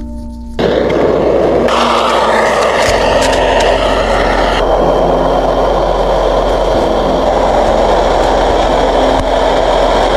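Strong wind blowing steadily across the microphone in a snow storm, beginning abruptly about half a second in.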